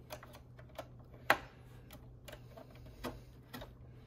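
Scattered sharp clicks and light knocks as a TP-Link TL-WN881ND PCIe WiFi card, with its metal bracket, is handled and pushed into a desktop motherboard's PCIe slot. One loud click comes about a second in, and a few softer ones follow later.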